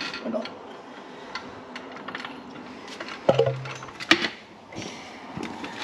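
Scattered metallic clinks and knocks of hand tools and suspension parts being handled under a ute's front end, with louder knocks a little after three and four seconds in.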